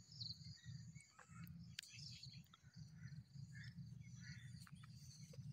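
Near silence: faint outdoor ambience of scattered bird chirps and insects over a low, uneven rumble.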